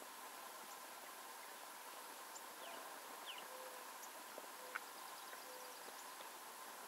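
Faint outdoor ambience: a steady hiss with scattered short bird chirps and a brief rapid trill. Three short low notes come about a second apart in the middle, with a single click shortly after.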